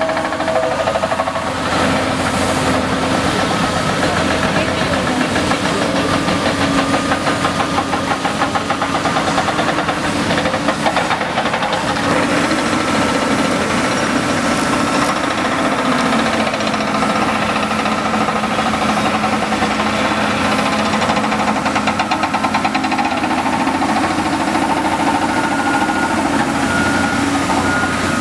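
Diesel engines and hydraulics of large tracked excavators, a Cat 385BL and a Komatsu, running steadily under load while digging, with tones that shift in pitch as the machines work, one dropping a step about sixteen seconds in.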